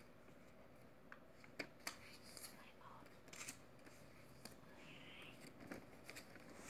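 Paper banknotes (New Taiwan dollar 1000 notes) being counted by hand: faint rustling with several crisp little snaps as single notes are peeled off the stack and laid down.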